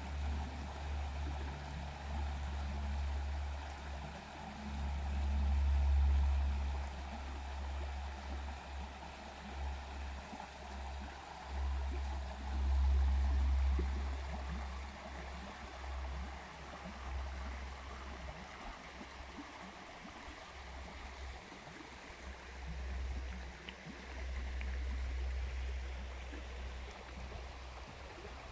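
Shallow river running over stones and gravel riffles: a steady rush and gurgle of water. Under it is a low rumble that swells and fades several times, loudest about six and thirteen seconds in.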